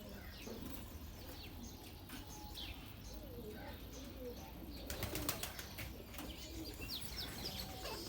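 African grey parrots calling: scattered short chirps, whistles and low warbling calls, with a quick flurry of wing flaps or clatter about five seconds in.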